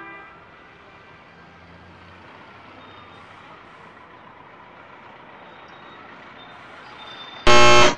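Faint steady room noise, then near the end a sudden, very loud, harsh blaring tone lasting about half a second.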